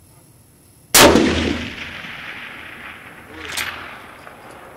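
A Mauser Kar98k bolt-action rifle in 8mm Mauser fires one shot about a second in, its report trailing off in a long echo. A fainter sharp sound follows about two and a half seconds later.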